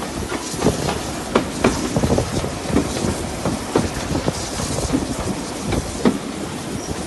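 Railway passenger coach running along, its wheels clicking and knocking irregularly over the rail joints over a steady rumble, heard from inside the carriage.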